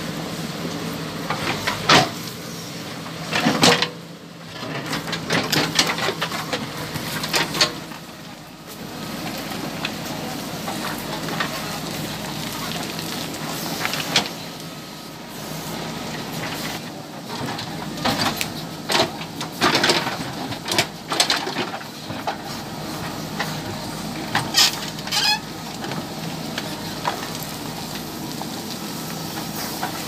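JCB backhoe loader's diesel engine running steadily while the backhoe bucket digs into rocky soil, with repeated sharp knocks and clatters of stones against the steel bucket.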